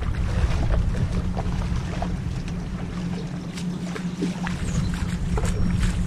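Strong wind rumbling on the microphone, with light splashes of feet wading through shallow floodwater.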